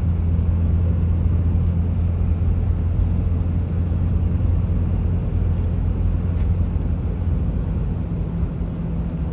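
A motor vehicle driving, with a steady low engine and road drone that holds even throughout.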